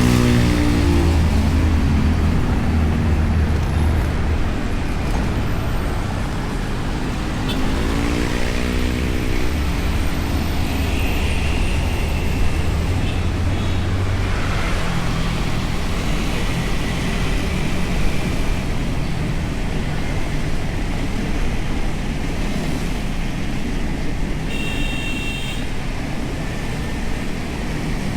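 Riding noise from a moving Honda Beat scooter's single-cylinder engine, steady wind and road rush over a low engine hum, mixed with surrounding traffic. Other vehicles pass close by near the start and about 8 seconds in, and a short high tone sounds near the end.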